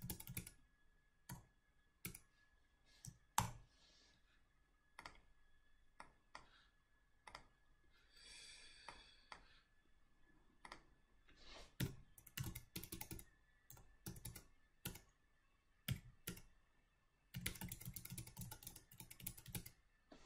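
Faint computer keyboard and mouse clicks, scattered and irregular, with quick runs of key presses about two-thirds of the way through and again near the end, as answers are entered into a database form.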